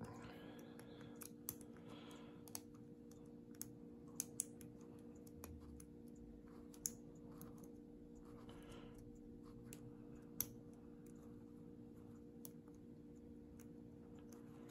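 Faint, scattered clicks and ticks of a lock pick and tension wrench working the pins of a Lockwood pin-tumbler padlock, irregular and a second or more apart, the sharpest about seven and ten seconds in.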